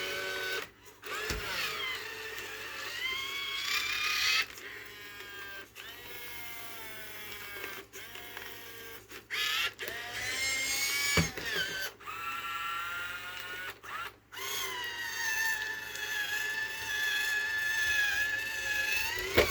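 Robosapien V2 toy robot giving a string of electronic voice sounds and tones through its speaker: separate pitched calls that bend and waver in pitch, with a long held tone near the end.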